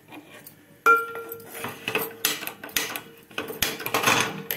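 A steel frying pan set down on a gas stove's burner grate: a sharp clank about a second in that leaves the pan ringing, followed by repeated metal clatter and scraping as it is shifted on the grate.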